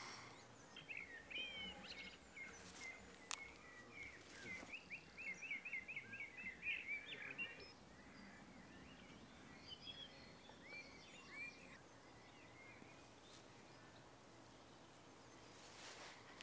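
Faint birdsong over a quiet outdoor background: a small bird sings a quick run of repeated chirping notes for several seconds, followed by a few scattered calls, then only a low background hush.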